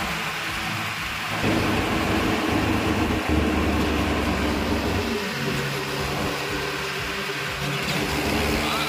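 Mahindra tractor's diesel engine running under way, a steady low drone whose note changes a few times, with a rushing noise over it.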